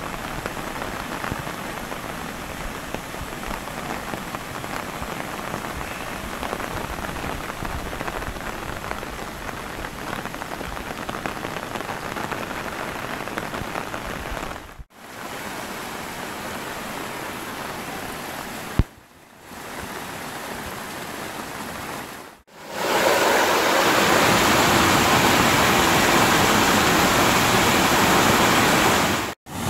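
Steady heavy monsoon rain, a continuous hiss of falling water. About three-quarters of the way through it gives way to a louder, fuller rush of floodwater surging down a street gutter. There is a single sharp click a little past the middle.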